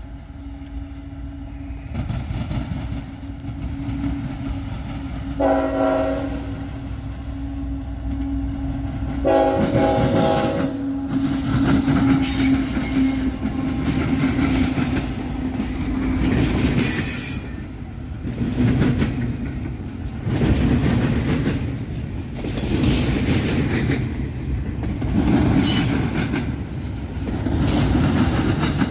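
CSX intermodal freight train coming through: a diesel locomotive's drone, two blasts of the air horn about five and nine seconds in, then the train passing with a loud, rhythmic clatter of wheels crossing the rail diamond.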